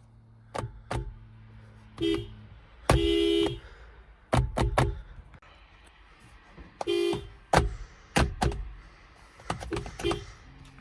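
Toyota Prius car horn sounding in a series of honks: mostly brief taps, with two longer honks of about half a second, about three seconds in and about seven seconds in. Sharp clicks come in between.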